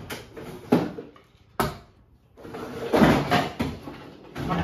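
Kitchen cupboard being opened and rummaged through: several sharp knocks, then a stretch of plastic supplement tubs clattering against each other before one is set down on the counter.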